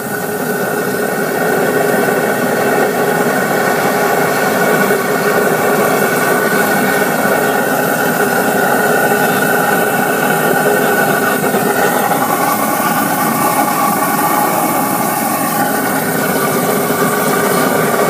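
Homemade siphon-nozzle waste oil burner firing on LPG and compressed air: a steady rush of flame and blast air, growing louder over the first couple of seconds as the air is turned up, then holding steady.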